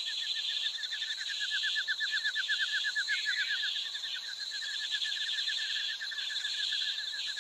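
Rainforest animal sounds: a fast, even train of chirps, about ten a second, briefly pausing about four seconds in, over a steady high-pitched buzz.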